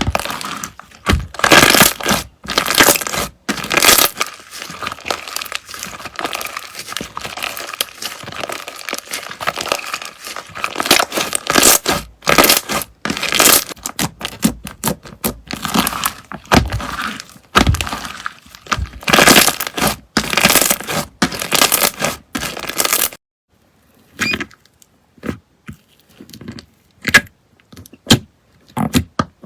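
Slime being squeezed and pressed by hand, giving a dense, irregular run of crackling and popping. About 23 seconds in it thins to a few separate clicks and pops.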